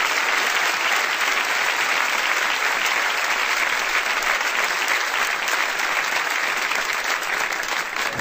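Large audience applauding steadily, a dense wash of many hands clapping at once.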